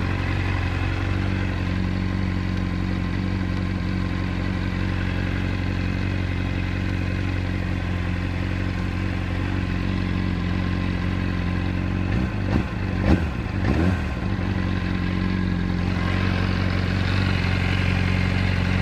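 Honda CBR600RR inline-four engine idling with a persistent clattering mechanical noise. A new cam chain and an APE manual cam chain tensioner have not cured it, and it does not change with the clutch pulled in. About twelve seconds in, the revs rise and fall briefly a few times before settling back to a steady idle.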